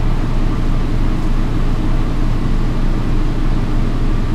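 Steady, loud, low mechanical drone of running machinery, unchanging throughout, with a strong low hum.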